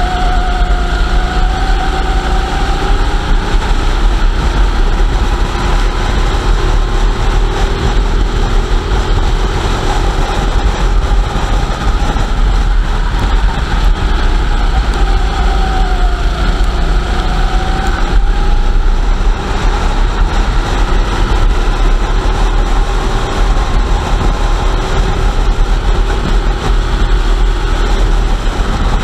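A rental racing kart's engine heard from on board at race speed, its pitch rising and falling with the throttle through the corners, over a heavy steady low rumble.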